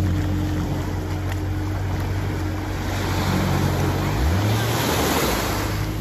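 Sea waves washing onto a beach, the wash swelling loudest in the second half. Under it an engine runs steadily, its pitch rising briefly a little after four seconds in.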